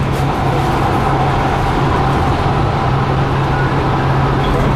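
Steady running noise inside a Kinkisharyo P3010 light rail car on the move: a constant low hum with a steadier, higher whine, over an even rumble and hiss of the train travelling on the track.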